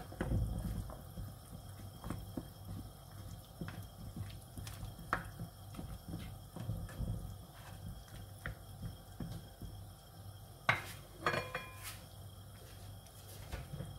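Spatula stirring chicken and green papaya pieces in broth in a nonstick pan: soft scrapes, light knocks and sloshing, with a few sharper knocks and a brief ring about eleven seconds in. A steady low hum runs underneath.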